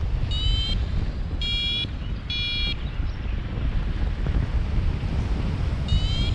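Paragliding variometer beeping over heavy wind noise on the microphone. It gives three short high beeps in the first three seconds, then another with a rising pitch near the end; the beeps signal that the glider is climbing.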